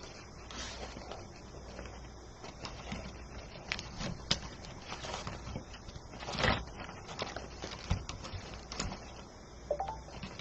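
Ribbon rustling and crinkling as it is looped and pressed down onto a peg bow-making board, with scattered soft clicks and crackles; the loudest crackle comes about six and a half seconds in.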